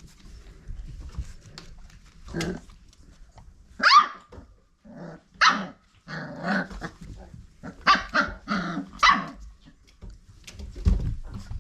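Five-week-old red nose pit bull puppies barking and growling at play: a string of short, high yaps a second or so apart, some sliding down in pitch.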